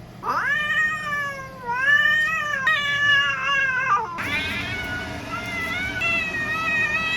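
Brown tabby cat meowing in about four long, drawn-out complaining calls, each rising and then slowly falling in pitch.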